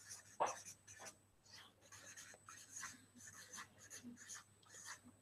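Felt-tip marker writing on flipchart paper: a run of short, faint strokes.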